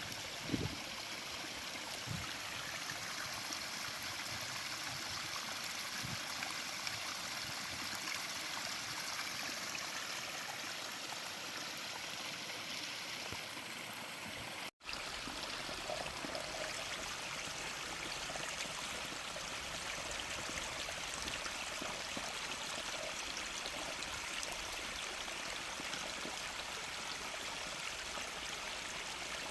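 Water running steadily in a stream, an even rushing and gurgling. It breaks off for an instant about halfway, then carries on with a little more low rumble.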